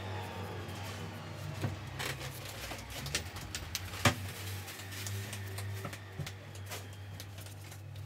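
Small taps and clicks of a watercolour brush worked over paper on a board, over a steady low hum. The sharpest tap comes about four seconds in.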